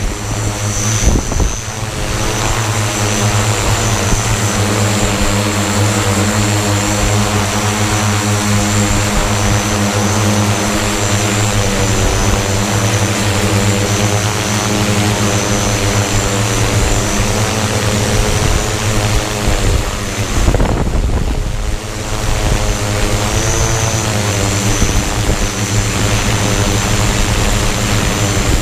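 Electric hexacopter in flight, its six motors and propellers whirring as a steady stack of tones over a high whine. The motor pitch wavers as they change speed against strong wind, with a brief dip about two-thirds of the way through.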